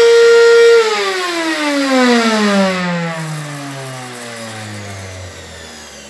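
Hydro Action water-filter vacuum cleaner's motor running with a loud, steady hum, then switched off about a second in and spinning down, its whine falling steadily in pitch and fading. The hum comes from a worn motor bearing.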